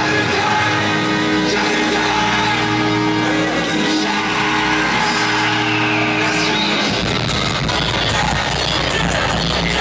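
Live concert music in an arena, with singing over held chords, heard loud and echoing through a phone recording from the crowd. About seven seconds in, a heavy bass comes in.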